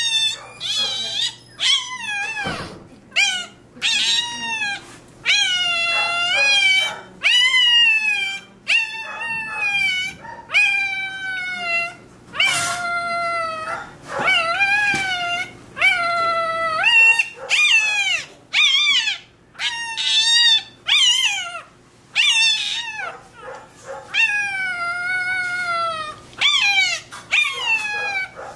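Newborn Rottweiler puppy crying in a run of high-pitched squeals, about one a second, some rising and some falling in pitch, as its tail is docked.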